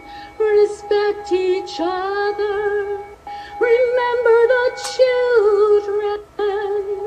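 A woman singing long held notes that slide between pitches over the steady ring of a Tibetan singing bowl. The singing breaks for breath about three seconds in and again near six seconds.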